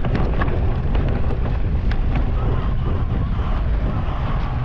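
Wind buffeting a GoPro's microphone as a steady, loud low rumble, with scattered small knocks and clicks from the bike on rough ground.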